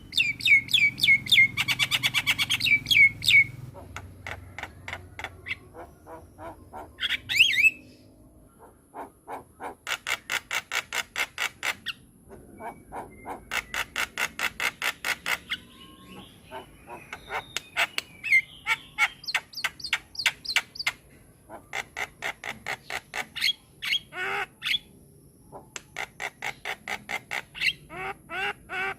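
Javan myna (jalak kebo) calling in bouts: fast rattling trains of clicks mixed with short whistled and squawking notes.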